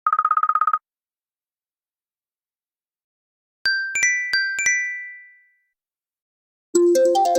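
Electronic alarm and ringtone sounds, one after another: a short rapid buzzing beep of under a second, then after a pause a quick run of chime notes that ring out and fade, and near the end a busy electronic ringtone melody begins.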